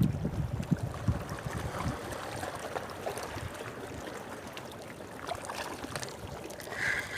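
Water lapping at the shore with wind gusts rumbling on the microphone, heaviest in the first couple of seconds. Near the end a high-pitched tone begins, pulsing on and off.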